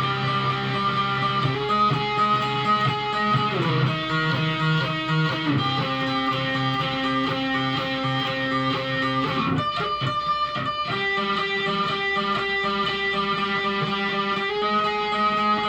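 Guitar playing ringing chords that change every two to four seconds, with a few quick strums about ten seconds in.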